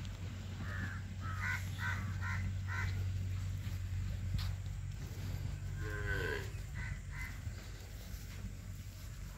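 Crows cawing in a quick run of about five short calls, then a cow lowing once about six seconds in, followed by two more caws, over a steady low hum.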